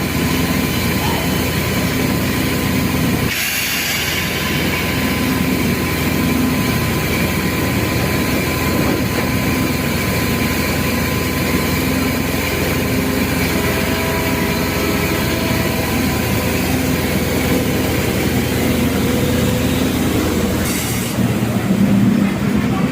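Electric commuter train running along the platform: a steady rumble with faint thin whining tones that come and go. A short hiss sounds about three seconds in and again near the end.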